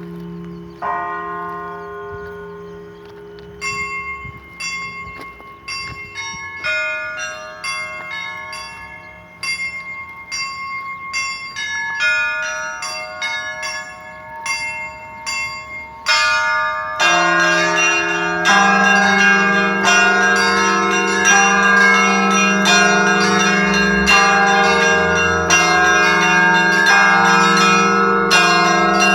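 Orthodox cathedral bells ringing: a large bell's hum dies away while small bells are struck in quick, rhythmic patterns, then about halfway through heavy bells come in and the full set rings together, louder and denser.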